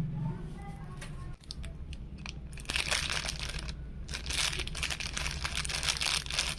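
Plastic packaging crinkling and rustling as it is handled, in two longer bursts with small clicks between them.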